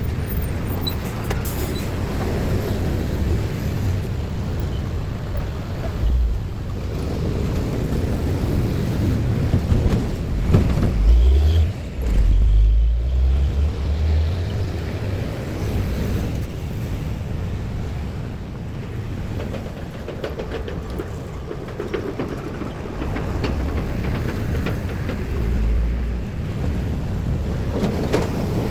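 Road traffic passing by: a steady wash of engine and tyre noise, with heavier low rumbles about a third of the way in and again near the end.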